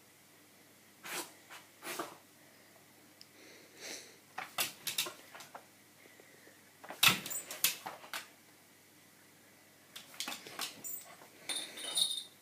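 A dog snapping at glass, its teeth and muzzle clacking against the pane in scattered bursts of sharp taps, the loudest cluster a little past the middle.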